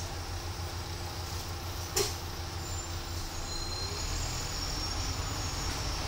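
Steady low drone of a bus's engine and road noise, heard from inside on the upper deck of a double-decker, with a single sharp click or knock about two seconds in.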